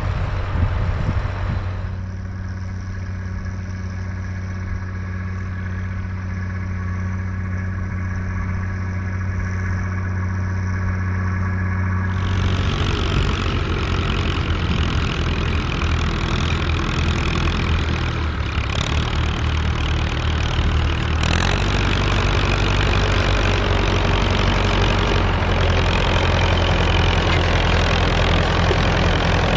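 Massey Ferguson tractor's diesel engine running steadily under load while ploughing. The sound changes abruptly about two seconds in and again about twelve seconds in, growing fuller and louder in the second half.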